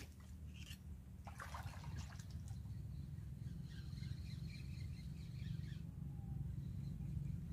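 Steady low wind rumble on the microphone, with faint bird chirps through the middle and a brief rustle or splash about a second and a half in.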